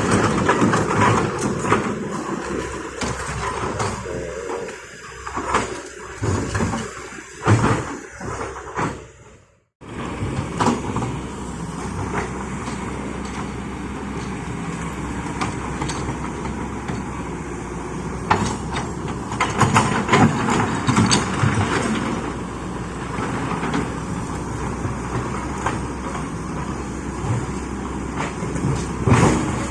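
Excavator engine running while working stone, with repeated clanks and scrapes of rock against the steel bucket. The sound cuts out briefly about ten seconds in, then the engine drone resumes with more clanks.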